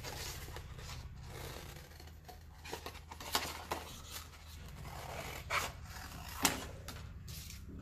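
Scissors cutting a paper plate: paper rustling and scraping, with several sharp snips in the second half, the loudest about two thirds of the way in.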